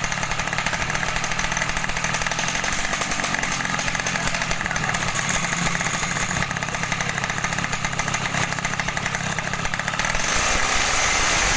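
Tuned underbone motorcycle engine running with a fast, steady beat. About ten seconds in it gets louder.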